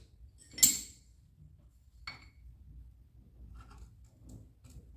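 Hand tools clinking against metal while a crankcase breather tube is worked loose from the engine block: one sharp metallic clink about half a second in, a lighter click near two seconds, then a few faint small ticks.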